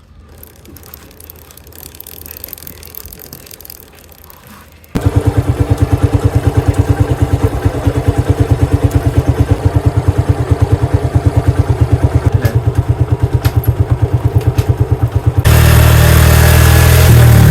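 Motorcycle engine running with a fast, even pulse. It comes in abruptly about five seconds in after a quiet stretch and gets louder near the end.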